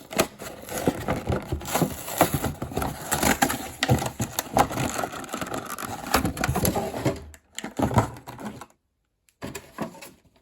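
Plastic and cardboard toy packaging being handled and pulled open: a dense run of clicks, crackles and scrapes that thins out near the end.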